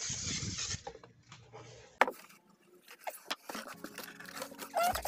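Aerosol spray adhesive hissing from its can, stopping about a second in. About two seconds in comes a sharp knock, then light scrapes and knocks as the cardboard box is handled.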